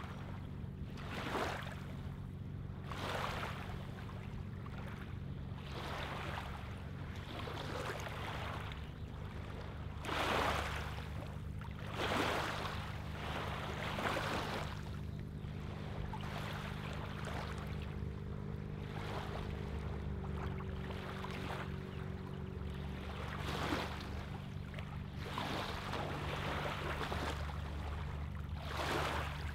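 Small lake waves lapping on a gravelly shoreline, each wash a soft splash that comes every second or two, over a steady low hum.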